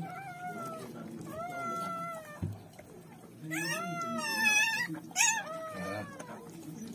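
Newborn German shepherd puppy crying in high, mewing squeals, about five cries, the longest and loudest about halfway through.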